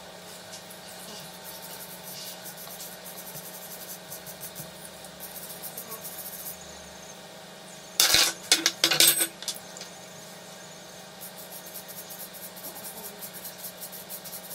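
Brass wire brush scrubbing the metal contacts of small plastic instrument-panel bulb holders, a light, fine scratching that cleans off corrosion. About eight seconds in, a brief loud clatter of small hard objects on the table.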